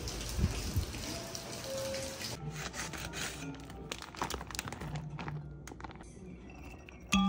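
Steady hiss of rain for the first two seconds or so, then a quieter stretch of scattered light clicks and taps with a few faint short tones.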